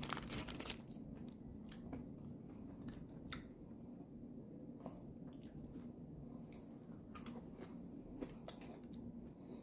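A person chewing food close to the microphone, with scattered small clicks and crunches.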